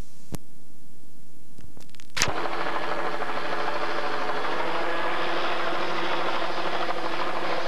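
A few sharp clicks where the videotape cuts. Then, about two seconds in, a helicopter comes in and runs on as a steady drone with a low hum.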